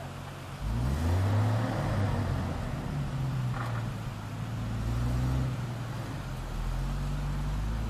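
Engine of a heavy six-wheeled truck loaded with logs, revving up about half a second in and then pulling steadily under load as it fords a river, with small rises and falls in pitch. Rushing river water runs underneath.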